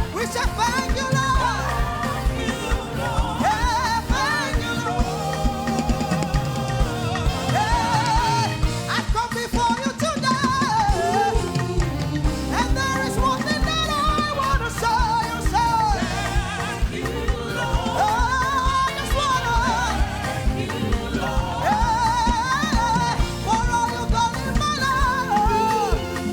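Gospel praise song: singers holding and bending long melodic lines over a live band with drum kit keeping a steady beat.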